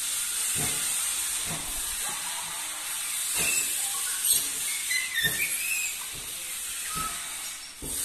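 A steady high hiss runs throughout, with a few short chirps and squawks from the parrots about four to six seconds in and some soft knocks.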